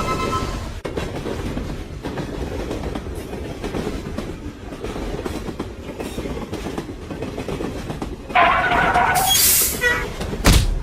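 Train running sound effect: a steady rumble with rail clatter, then about eight seconds in a sudden loud horn blast followed by a hissing noise, and a heavy thud near the end.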